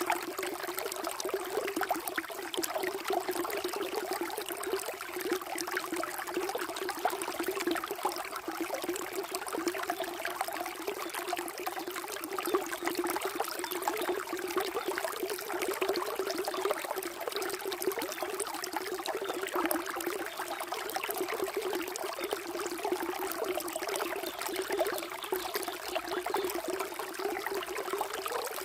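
Flowing water trickling steadily, an even rushing sound with no breaks.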